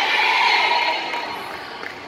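Spectators and players cheering and shouting after a volleyball point, the noise dying away over the two seconds.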